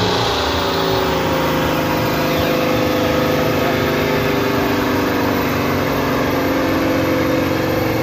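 Tractor engine running hard at a steady, loud pace during a pull. Its pitch dips slightly in the first few seconds, then holds.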